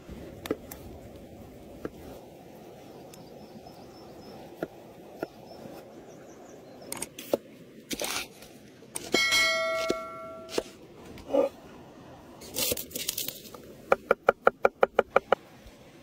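Close-up kitchen-prep sounds: a knife cutting through onion on a wooden board with scattered clicks and knocks, a short metallic ring about nine seconds in, and a quick run of about nine sharp knife chops near the end.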